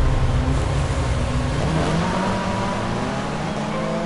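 Off-road 4x4 engine accelerating, its pitch climbing steadily through the second half.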